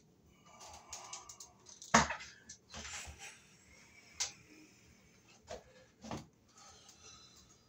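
Scattered knocks and clicks with light rustling from hands-on work on a ceiling fan installation, the loudest knock about two seconds in.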